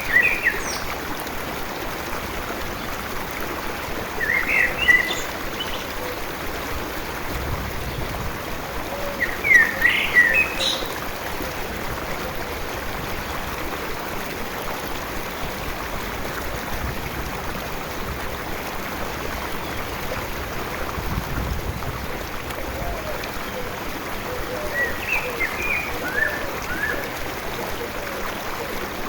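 A small stream babbling steadily, with songbirds chirping in short bursts at the start, several times early on and again near the end.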